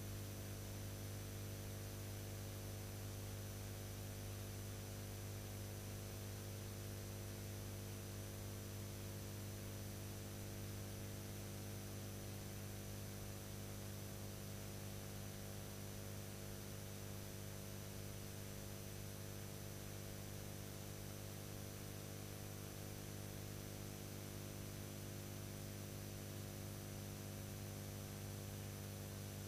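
Steady electrical mains hum with a stack of buzzy overtones over a faint even hiss, plus a thin high steady tone. This is the empty audio track of a transfer of silent archival film.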